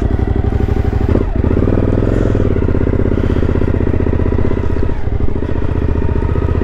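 Suzuki V-Strom's V-twin engine running as the motorcycle rides at low speed. The engine note dips briefly about a second in, then picks up and holds steady.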